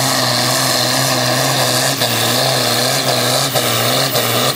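Diesel engine of a pulling tractor running flat out under full load as it drags the weight-transfer sled, held at a steady pitch.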